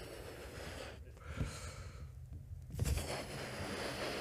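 A person blowing up a balloon: three long breathy puffs of air, a short pause before the third, with low breath pops on the microphone about one and a half seconds in and just before the last puff.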